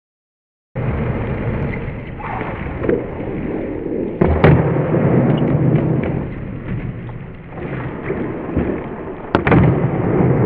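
Skateboard wheels rolling on smooth concrete with a steady rumble, broken by sharp cracks of the board's tail popping and the board landing: once about four seconds in and again near the end.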